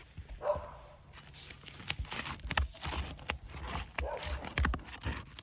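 A roof snake being worked under asphalt shingles, breaking their sealant strips loose with irregular crackling, tearing and scraping sounds and sharp clicks.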